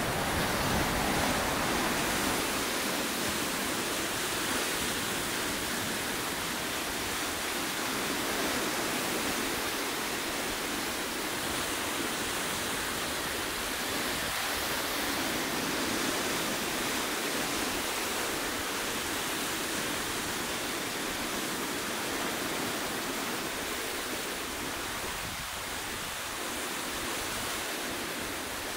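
Ocean surf washing over and around rocky ledges: a steady rush of white water that swells and eases gently every few seconds, with no single large crash standing out.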